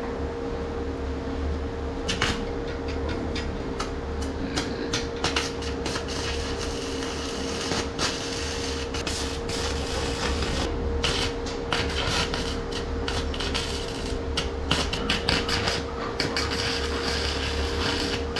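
Electric arc welding on square steel tubing: the arc crackles and spits irregularly over a steady hum.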